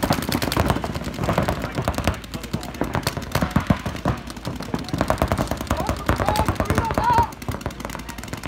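Paintball markers firing fast, overlapping strings of shots, a dense rattle of pops that keeps up throughout.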